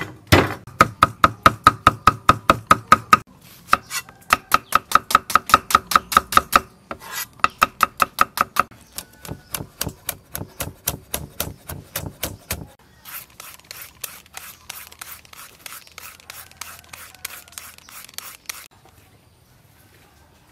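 Cleaver chopping on a thick round wooden chopping block, cutting shallots and red chillies: quick, even strokes about five a second in several runs with short breaks, lighter and faster in the second half, stopping near the end.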